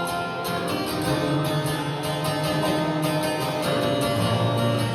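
Guitar strummed in a steady rhythm: an instrumental passage between sung verses of a folk song.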